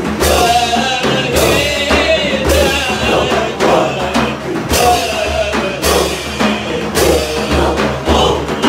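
A man's voice singing a Sufi devotional hymn through a microphone and loudspeaker, held notes over drum strokes that fall about once a second.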